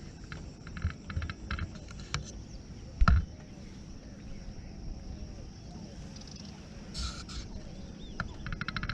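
Runs of rapid clicking in the first two seconds and again near the end, with a single thump about three seconds in.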